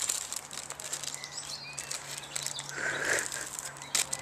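Faint birds chirping outdoors over light crackling and clicking, with one louder, short call about three seconds in.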